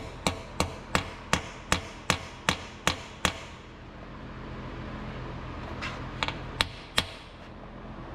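Hammer tapping threaded steel block-off plugs into the lifter-valley oil passages of a GM 5.3L LT V8, sealing off the oil feed to the cylinder-deactivation (DOD) lifter solenoids. A quick run of about ten sharp taps, roughly three a second, then a pause and four more taps.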